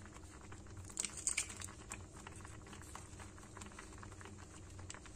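Oats and peas porridge simmering in a steel pot on a gas burner, with many small irregular pops and crackles from bursting bubbles and a louder cluster of crackling about a second in.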